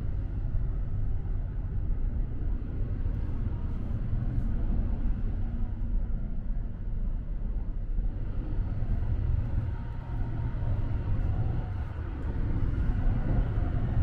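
Sunrise Express sleeper train running, heard from inside the car: a steady low rumble of wheels on the track and running gear, swelling a little near the end.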